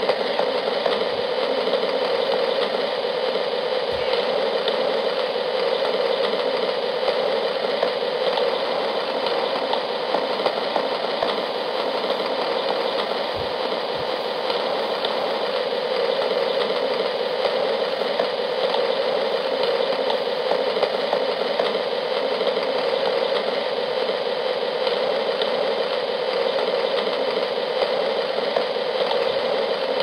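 Steady rain falling, an even dense wash of drops that holds the same level throughout.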